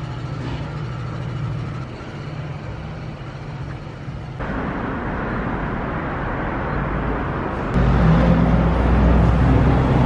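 Road traffic on a busy city street, with a steady noise of passing cars. About three quarters of the way through, a vehicle's low engine rumble passes close and loud.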